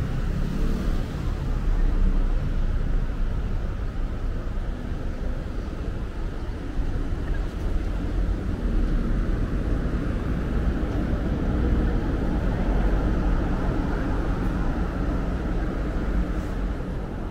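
City street ambience: a steady low rumble of road traffic passing.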